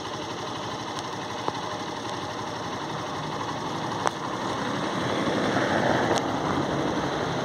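A car driving past on a wet cobblestone street, its tyre hiss swelling and fading about two-thirds of the way through, over the steady noise of wet traffic.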